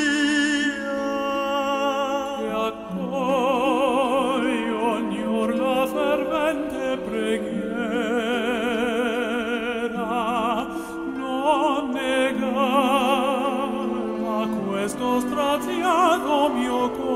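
Operatic-style solo singing with a wide vibrato on long held notes, over instrumental accompaniment.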